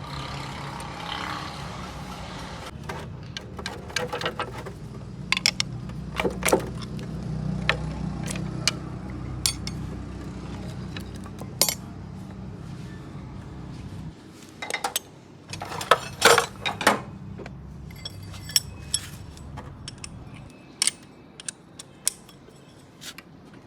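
Metal tools and engine parts clinking and knocking in scattered sharp strikes during an engine strip-down, over a steady low hum that drops away about halfway through.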